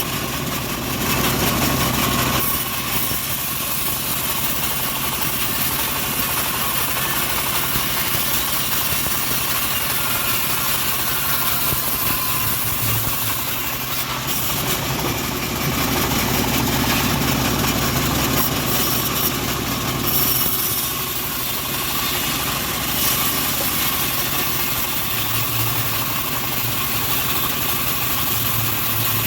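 The engine-driven homemade bandsaw sawmill running steadily, its motor and machinery making a continuous mechanical drone.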